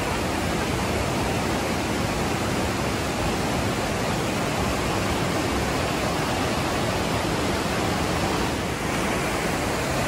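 Mountain river rushing over rocks in white-water rapids: a loud, steady rush of water.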